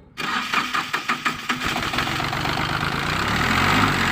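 Yanmar 3TN three-cylinder diesel engine cranking on the starter in quick, even pulses, then catching after about a second and a half and settling into a steady run.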